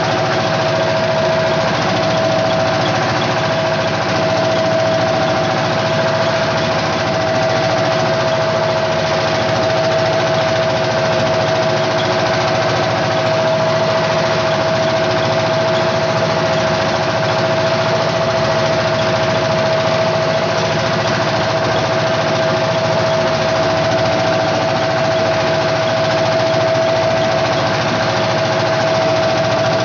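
Engine of a small wooden fishing boat running steadily while under way, with a constant high hum through it.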